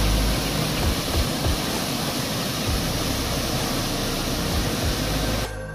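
Steady rushing of a waterfall pouring into a plunge pool. Music comes in about half a second before the end.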